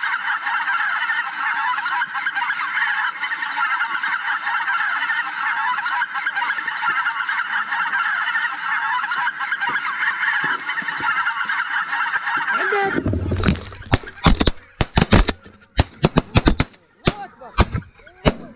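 A large flock of geese honking, a dense continuous chorus of many overlapping calls. It stops abruptly about 13 seconds in, and a run of sharp, irregular bangs and knocks follows.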